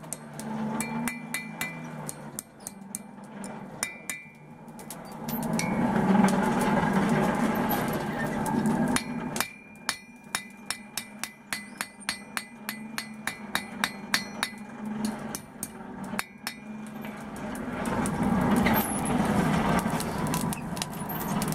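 Hand hammer striking a steel rod on an anvil, bending it into the shape of a branding iron. The blows are scattered at first, then come in a quick run of about three or four a second through the middle, over a steady low hum.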